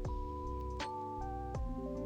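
Soft ambient background music: held synth notes over a light, regular beat.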